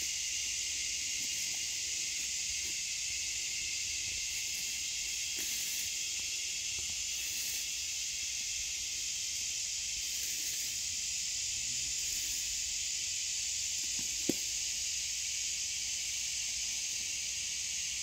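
Steady chorus of insects, a continuous high-pitched hiss that does not change. A single short tap about fourteen seconds in.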